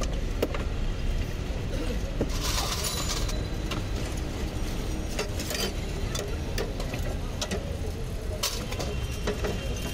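Busy street ambience: a steady low traffic rumble with scattered sharp clinks and taps, and a brief hiss about two and a half seconds in.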